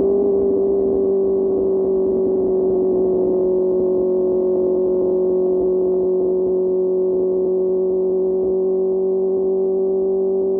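QJ Motor SRK600's inline-four engine through an SC-Project exhaust, held at steady revs while cruising: an even, high-pitched drone that neither rises nor falls.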